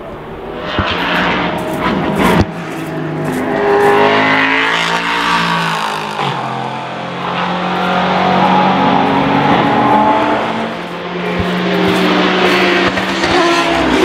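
Racing sports-prototype engines at high revs as the cars pass, pitch rising through the gears and falling off under braking, in several loud swells. A single sharp crack about two and a half seconds in.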